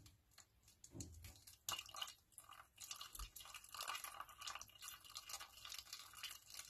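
Thin stream of hot water poured from a ceramic mug into a paper cup of dry instant champorado mix: faint trickling and splashing, fuller from about two seconds in.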